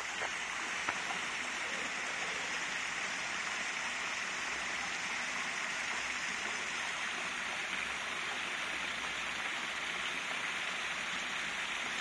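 Small waterfall spilling over a rock ledge into a shallow pool: a steady rush and splash of falling water.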